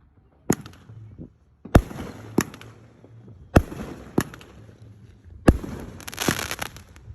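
Fireworks going off: about six sharp bangs spaced roughly a second apart, each trailing off briefly, with a spell of dense crackling about six seconds in.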